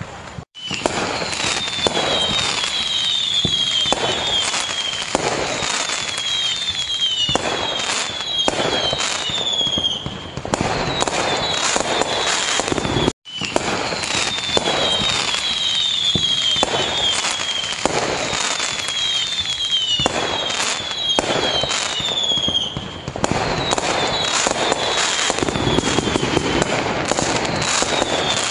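A fireworks display: aerial shells bang in quick, overlapping succession, mixed with many short falling whistles. The sound drops out for an instant twice, about half a second in and again about 13 seconds in.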